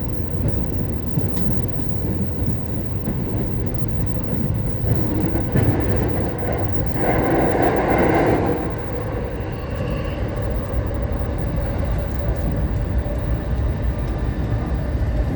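Electric commuter train running between stations, heard from inside the car: a steady low rumble of wheels and motors, with a louder, rushing stretch about two-thirds of the way through.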